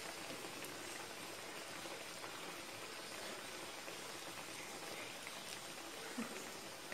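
Breadcrumb-coated banana fritter deep-frying in hot oil in a wok: a steady sizzling hiss.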